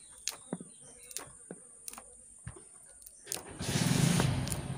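Kernels being thumbed off a fresh maize cob, with scattered small clicks as they drop into a tub. About three and a half seconds in, an engine starts up suddenly and keeps running, much louder than the shelling.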